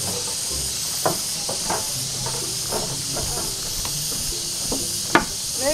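Tropical forest ambience: a steady high insect drone, with a few short chirps.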